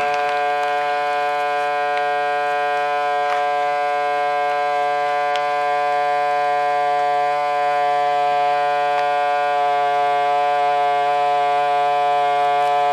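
Countertop vacuum sealer's pump running with a steady, even-pitched hum as it draws the air out of a bag of chicken legs. It labours long, straining, which the owner puts down to too much meat in one bag.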